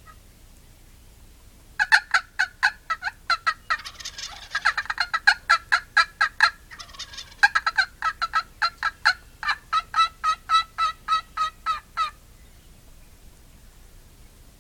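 Jakes (young male wild turkeys) gobbling again and again, a loud rapid rattling that starts about two seconds in and stops about twelve seconds in.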